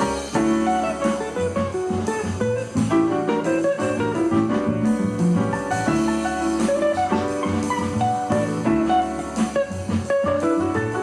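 Background instrumental music led by guitar, at a steady level.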